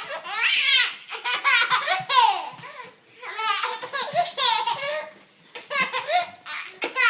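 A baby laughing hard in about four bouts of high, rapid, choppy giggles, with short breaks between them.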